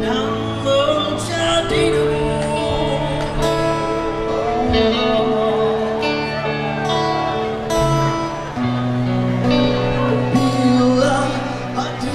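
Live band playing a song: a singer's voice over acoustic and electric guitars, bass guitar and drums.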